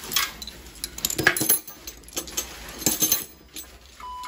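Metal hand tools, sockets and a ratchet, clinking and clattering as they are put away in a steel tool chest drawer, in irregular sharp knocks. Near the end a steady electronic beep starts.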